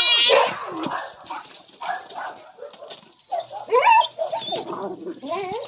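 Two rival cats yowling at each other in a fight: a long wavering yowl ends about half a second in, lower growling cries follow, and shorter rising yowls come about four seconds in.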